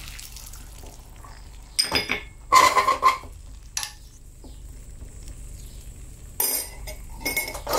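A metal utensil clinking and knocking against a clay cooking pot in several short bursts, one of them with a brief metallic ring.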